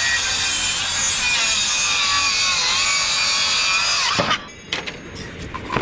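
Makita circular saw cutting through plywood, its pitch dipping slightly under load before it stops about four seconds in. A few sharp knocks follow as the offcut falls away and the saw is lifted off.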